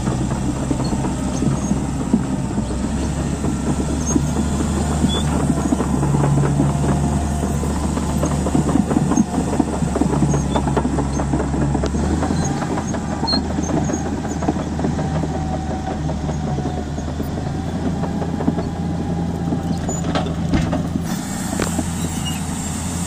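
Komatsu D155A bulldozer's diesel engine running steadily, with its tracks clattering throughout. The engine note drops a little about halfway through.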